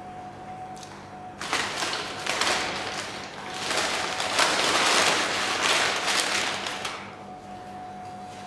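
Brown paper takeaway bag rustling and crinkling as a hand rummages inside it, for about five seconds from a second and a half in, over a faint steady hum.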